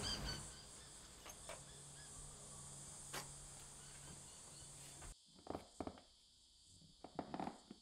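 Faint background ambience: a steady low hum and a high hiss with a couple of soft clicks. About five seconds in it drops away suddenly to near quiet, with scattered small clicks and rustles.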